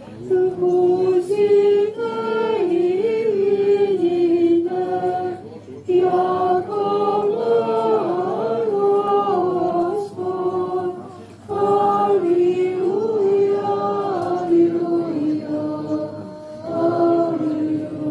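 A group of voices singing an Orthodox church chant, one melody sung in phrases with short pauses between them.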